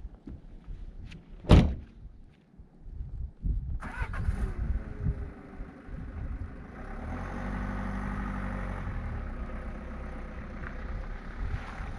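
A van door slams shut about a second and a half in. About two seconds later the Peugeot Boxer campervan's engine starts and keeps running as the van drives off.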